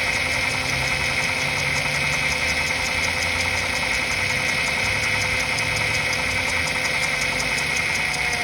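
Honda Accord J35 V6 engine idling steadily with a fast, even knocking tick, the noise the owner is asking about. A steady tone also runs through it.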